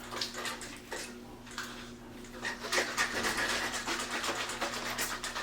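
Trigger spray bottle pumped repeatedly, a quick run of short hissing sprays starting about halfway in.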